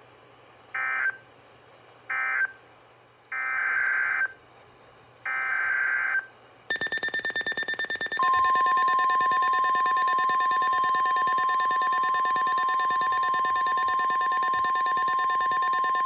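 Emergency Alert System SAME data tones: two short raspy digital bursts, then two longer ones about a second each. About seven seconds in, a harsh, rapidly pulsing electronic alarm beep starts. About a second later the steady 1050 Hz National Weather Service warning alarm tone joins, marking the start of a new severe thunderstorm warning.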